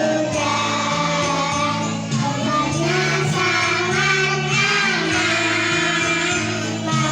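A group of young children singing together over a music accompaniment with steady held bass notes.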